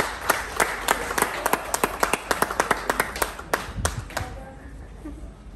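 A few people clapping their hands, the separate claps dying away about four seconds in.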